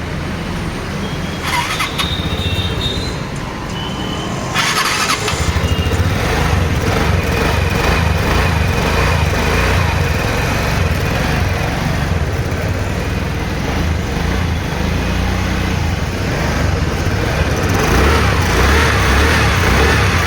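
TVS Ntorq 125 scooter's single-cylinder engine, freshly rebuilt with new valves, piston rings, timing chain and tensioner, starting about five seconds in and then running steadily, a little louder near the end.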